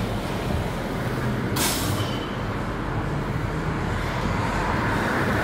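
Steady low rumbling background noise with a short, sharp hiss about a second and a half in, like a release of air.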